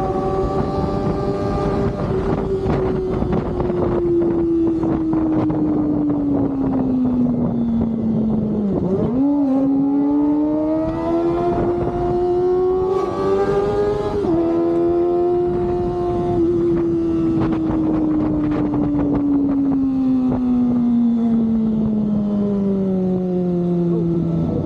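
Kawasaki ZX-25R's high-revving inline-four engine through an Austin Racing Purba aftermarket exhaust, heard while riding. The engine note winds down slowly as the revs fall, jumps back up about nine seconds in, and then winds down again.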